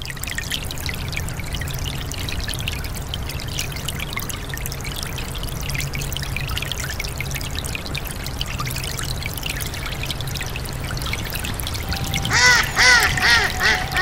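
A brook running over rocks and small falls, a steady gurgling rush of water. Near the end a mallard quacks four times in quick succession.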